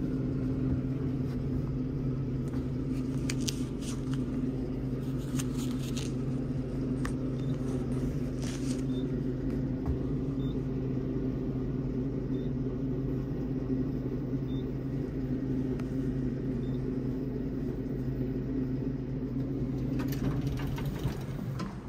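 Passenger elevator car in motion: a steady low hum and rumble throughout the ride, with a few faint clicks. Near the end the hum drops away as the car stops and the doors slide open.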